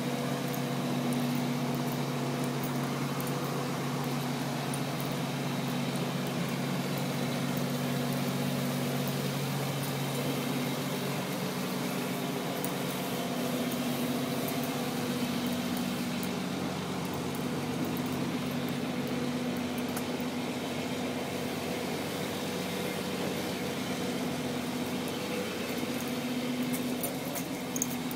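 Heavy construction machinery's diesel engine running steadily with a low hum. One of its lower tones drops away about ten seconds in.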